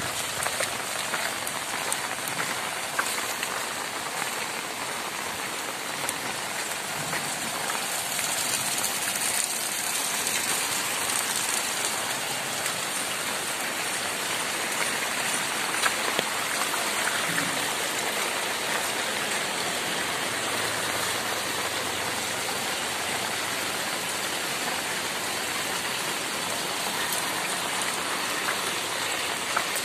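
Heavy rain falling on a flooded street: a steady, dense hiss with occasional sharper drop hits, growing a little louder about eight seconds in.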